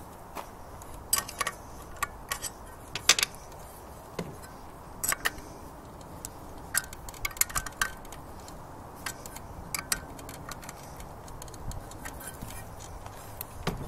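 Irregular sharp metallic clicks and light clinks, several in quick succession at a time, from a wrench and bolts being handled on an outboard motor's lower unit.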